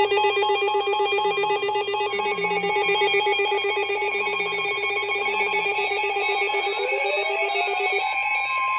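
Emergency alert signal from a weather-alert receiver: a rapid buzzing, warbling electronic data sound, then about eight seconds in a steady high alert tone begins, marking the start of an incoming warning.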